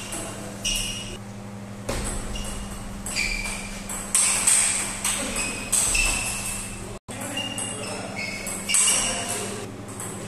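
Table tennis ball clicking off the paddles and the table in a fast rally, many hits leaving a short ringing ping, over a steady low hum. The sound cuts out for an instant about seven seconds in.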